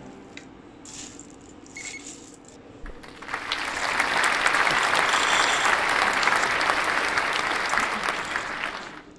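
Dark-roasted robusta coffee beans transferred from a stainless steel bowl into a glass jar: a dense rattling of many small hard beans against metal and glass. It starts about three seconds in and lasts about six seconds, after a few light clicks.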